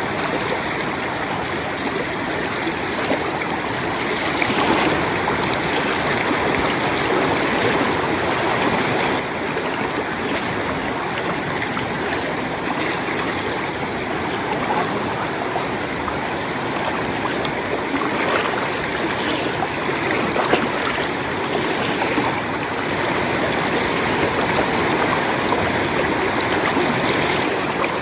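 A river rushing steadily: an even, unbroken wash of flowing water.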